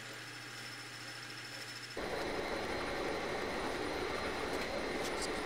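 A metal lathe runs with a steady, fairly quiet hum while it turns a metal index plate. About two seconds in, the sound cuts abruptly to a louder, steady milling machine spindle running with a spot drill, spotting holes in the plate.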